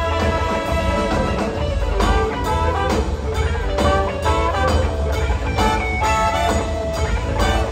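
Live band playing an instrumental passage: electric guitar lines with bending notes over drums, bass and keyboards.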